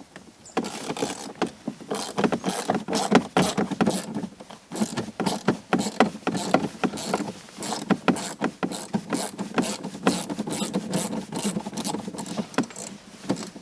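Socket ratchet on an extension clicking in quick runs as it backs out the screw that holds the door's interior handle.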